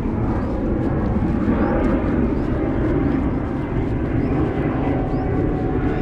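A steady low rumble that swells a little in the middle, with a faint steady hum and a few faint, high, short chirps now and then.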